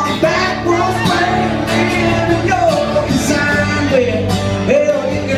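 Live country band playing with a sung vocal line over it.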